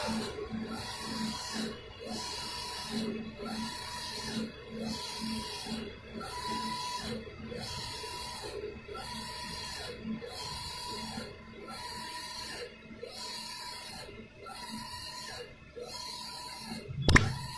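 Allwin eco-solvent wide-format inkjet printer printing, its print-head carriage shuttling back and forth with a hissing whir and a motor whine that rises and falls with each pass, repeating about once a second. A sharp knock comes near the end.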